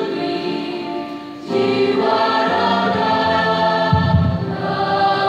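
Mixed school choir singing in harmony, holding long chords, with a short break about one and a half seconds in before the voices come back in together.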